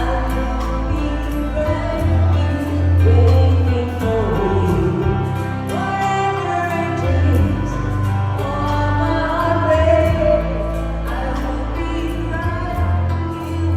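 A live band playing a song with a lead singer, the voice carrying the melody over a strong bass line.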